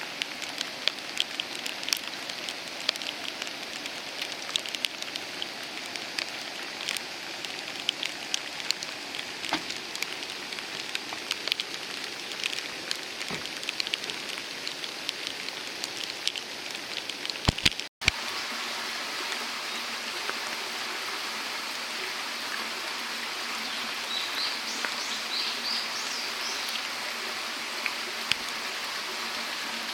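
Rain falling, with many sharp drops striking close by. About halfway through, the sound breaks off and comes back as a steadier, even hiss of falling water.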